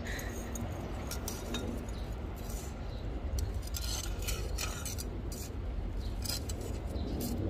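Coarse, gritty potting mix of perlite, kanuma and fine masa grit scraping and trickling as a metal hand trowel scoops it into a terracotta pot around a geranium's roots: a string of short, irregular scratchy rattles.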